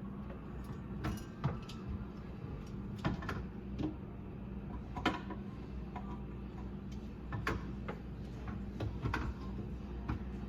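Scattered metal clicks and knocks from handling a garbage disposal unit while trying to turn its grinding plate, which is jammed by aquarium rocks lodged inside. A steady low hum runs underneath.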